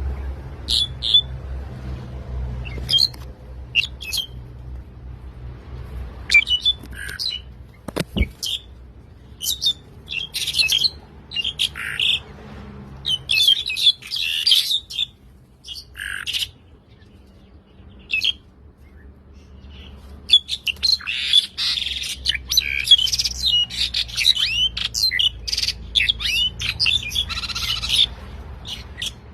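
Wild birds chirping and squawking in short, sharp calls, sparse at first and turning into a busy overlapping chorus about two-thirds of the way in. A single sharp knock sounds about 8 seconds in.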